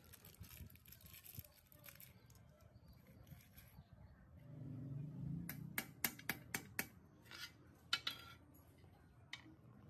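Light metallic clicks and clinks as a greased ball bearing is pressed into the steel head tube of a motorcycle frame and the frame is handled: a short low rumble about halfway, then a quick run of about six sharp clicks in just over a second, followed by a few scattered clinks.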